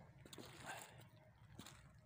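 Near silence: faint open-air ambience with a few soft scattered clicks.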